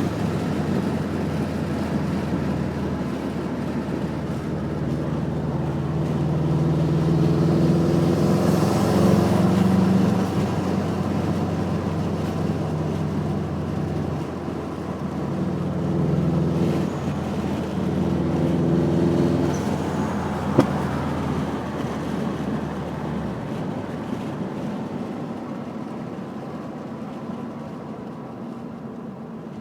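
Subaru WRX turbocharged flat-four engine being driven through repeated throttle-on, throttle-off cycles, the engine note rising and falling, with turbo flutter and blow-off valve sounds on lifting off. One sharp pop about two-thirds of the way through, typical of a small exhaust backfire, and the sound fades toward the end.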